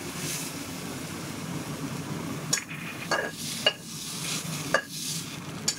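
Cooked spiralized vegetables being scraped out of a metal wok onto a plate: a few sharp clicks and scrapes of a utensil against the wok over a steady low background hum.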